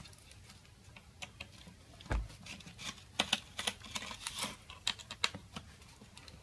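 Scattered small clicks and ticks of a small screwdriver on screws and the plastic housing as screws are taken out of a clamp meter's circuit board, with one low thump about two seconds in.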